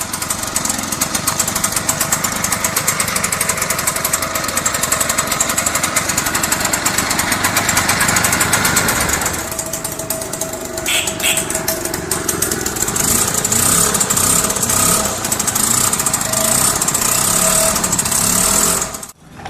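Small motor scooter engine running with a rattling, machine-gun-like beat; about halfway through the sound changes and a steady tone runs on under the engine.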